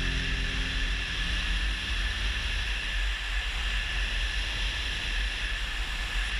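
Motorcycle riding at road speed, heard from a camera mounted on the bike: mostly wind rushing over the microphone, with a low buffeting rumble and a steady hiss. A song fades out in the first second.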